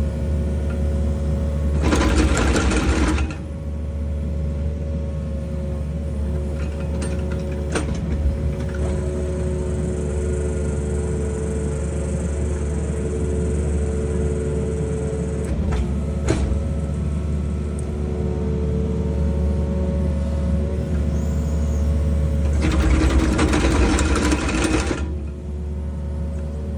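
Excavator engine running steadily while its hydraulic auger drills a pier hole. There are two louder rushing bursts, one about two seconds in and one near the end, and a few sharp clicks in between.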